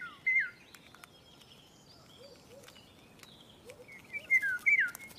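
Songbird chirping: short whistled notes in pairs near the start and again about four seconds in, over a faint outdoor background with scattered small ticks.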